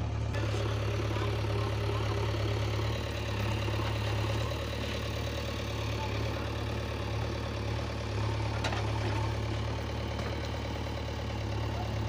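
Diesel engines of a JCB 3DX backhoe loader and a Mahindra tractor running steadily at low revs, a deep continuous drone with slight swells in loudness.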